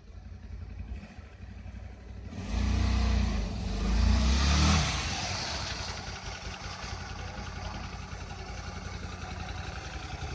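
Hyosung GT 125's small V-twin engine revved twice in quick succession about two and a half seconds in, then settling to a steady, evenly pulsing idle.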